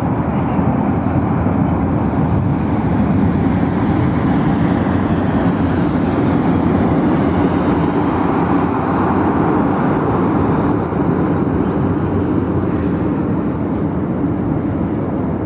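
Airbus A340 airliner's four jet engines, a loud steady roar through the landing, swelling a little in the middle and easing slightly near the end.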